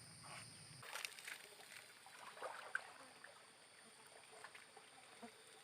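Near silence: a few faint scattered clicks over a faint steady high hum.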